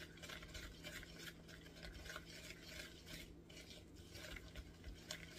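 Faint stirring and scraping of a spurtle through a sticky butter, sugar and egg-yolk mixture in a mixing bowl, in short irregular strokes.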